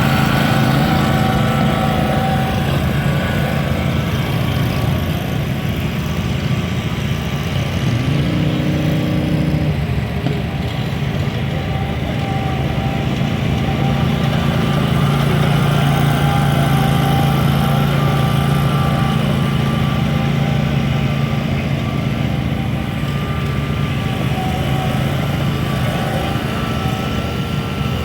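Zero-turn riding mower engines running steadily; a second engine briefly revs higher about eight seconds in.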